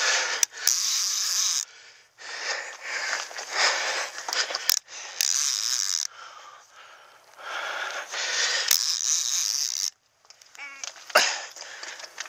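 A person breathing hard and noisily close to the microphone, in rushes of one to two seconds with short pauses between, from the exertion of fighting a large hooked fish. A brief run of fast ticks comes near the end.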